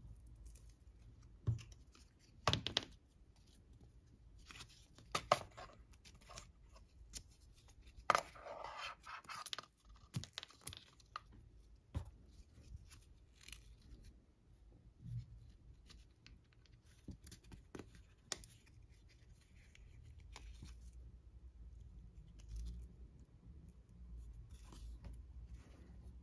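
Hands handling a woven nylon Apple Watch Sport Loop band: scattered sharp clicks and scratches, with a longer rasping rip about eight seconds in as its hook-and-loop strap is pulled open.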